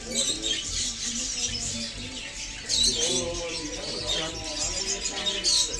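Pet parrots chirping and chattering, with sharper, louder calls about three seconds in and again near the end.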